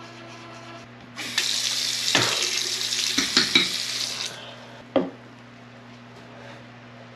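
Water running from a tap for about three seconds, with a few clatters in it, followed by one sharp knock. A steady low hum runs underneath.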